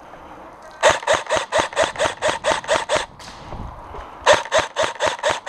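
Airsoft rifle fired in rapid single shots, about four to five a second: one string of about ten shots, a pause, then a second string starting near the end.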